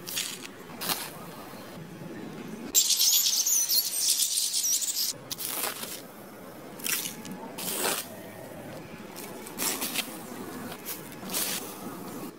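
Dry chopped straw rustling and crunching as a small plastic toy shovel digs into a heap and straw tumbles off it, in short scrapes about once a second. About three seconds in there is a longer, louder crackling hiss of straw falling for a couple of seconds.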